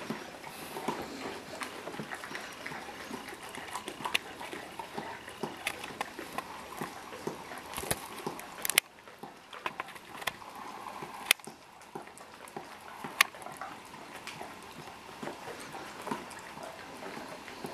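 Dog licking ice cream from a small cup held out by hand: a continuous run of small wet lapping and tongue clicks, with a few louder sharp clicks about halfway through.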